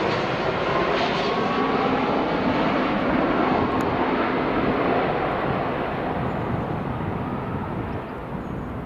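Jet airliner's engines passing close by, loud at first and then fading away over the last few seconds.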